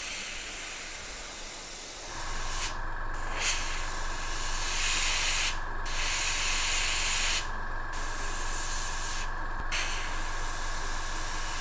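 Gravity-feed airbrush hissing as it sprays thin black paint, in long passes broken by four short pauses where the spray stops. A steady hum comes in about two seconds in.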